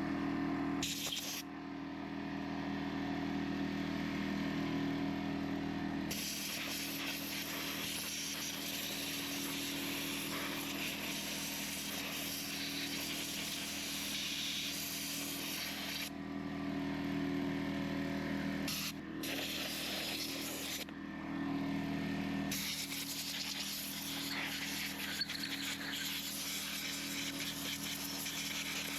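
Compressed air hissing from an air blowgun, blowing debris out of an Echo CS-490 chainsaw: two long blasts of about ten and six seconds, with short bursts near the start and in between, over a steady low hum.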